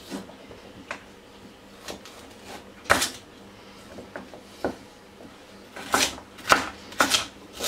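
Kitchen knife chopping carrots against a chopping board: a few separate cuts, then a quicker run of chops about six seconds in.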